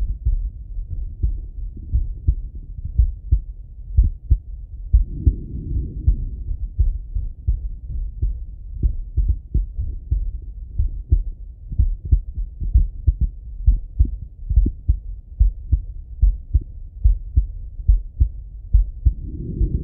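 A man's slow heartbeat heard through a Littmann stethoscope: a steady, regular lub-dub of low thumps. A soft breath rushes through it about five seconds in and again near the end.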